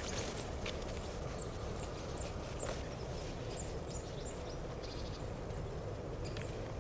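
Steady low outdoor noise with a run of faint, short high chirps, a few a second, through most of it.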